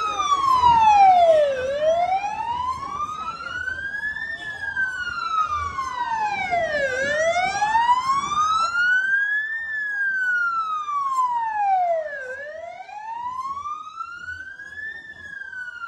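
Emergency-vehicle siren on passing Civil Defence vehicles, sounding a slow wail that rises and falls about every five seconds, growing fainter over the last few seconds.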